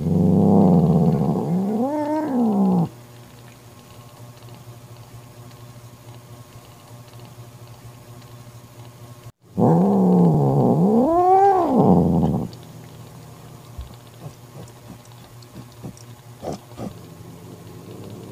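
Cat growling in two bouts of about three seconds each, the first at the start and the second about halfway through; each growl swells into a rising-then-falling yowl. It is the angry warning of a mother cat guarding her newborn kitten from another cat.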